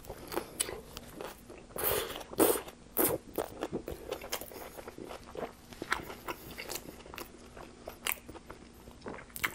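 Close-miked biting into a Subway Italian BMT flatbread sandwich, then chewing: a few louder crunching bites about two and three seconds in, followed by many small clicks and smacks of chewing.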